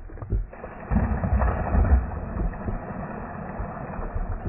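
A cast net landing on the water: a sudden splash about half a second to a second in as the weighted net hits the surface, followed by a hiss of spray and churned water that fades over a couple of seconds. Wind rumbles on the microphone underneath.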